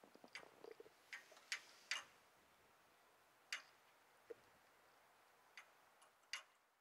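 Near silence with a few faint, irregularly spaced clicks and ticks.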